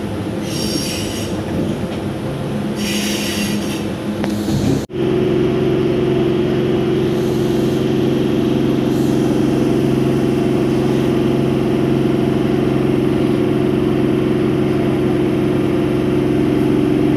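Indian Railways suburban EMU local train running, heard from its open doorway: wheels on rail with two short high squeals in the first few seconds. After a brief dropout about five seconds in, it settles into a steady drone with several held low tones.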